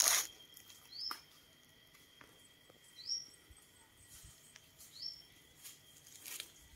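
A bird repeating a short, high, rising chirp about four times, one to two seconds apart, over a faint steady high-pitched whine. A sharp rustle or knock comes at the start, and a few soft clicks follow.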